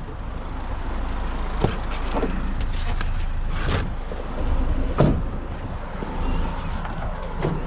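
Scattered knocks and clanks, the loudest about two seconds and five seconds in, as scrap metal and the van's doors are handled, over a steady low rumble.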